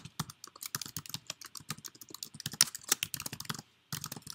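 Computer keyboard typing: a quick, uneven run of key clicks as an email address is typed, with a short pause about three and a half seconds in before the typing resumes.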